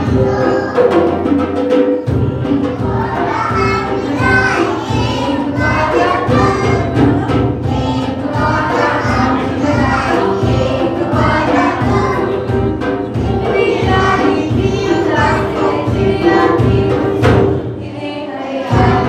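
A group of young children singing together with a live band of guitar and drums keeping a steady beat. The beat drops out briefly near the end, then comes back.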